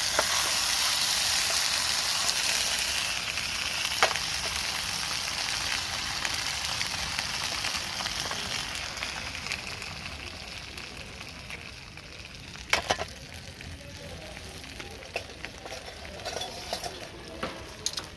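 Gyoza sizzling in a frying pan. The sizzle slowly dies down over the first ten seconds or so, with a few sharp clicks and knocks at about 4 s, around 13 s and near the end.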